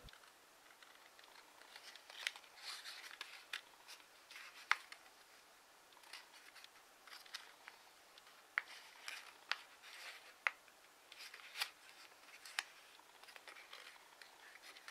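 Faint rustling and crisp little clicks of a sheet of origami paper being pressed and shaped by hand into a box, the clicks coming irregularly as folds are pushed into place.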